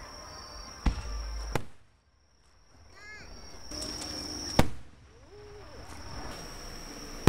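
Aerial fireworks shells bursting: four sharp bangs, about a second in, again shortly after, a loud one midway and another at the very end, with rumbling and crackle swelling between them.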